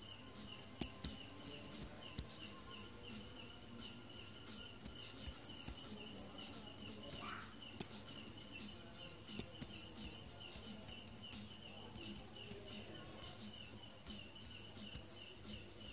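Faint small-animal chirping: a high chirp repeating steadily about three to four times a second, with scattered sharp clicks and one short rising call about seven seconds in.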